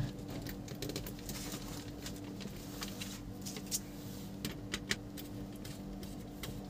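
Small clicks and rustles of hands handling electrical wires and a plastic switch board, with a few sharper clicks in the second half, over a faint steady low hum.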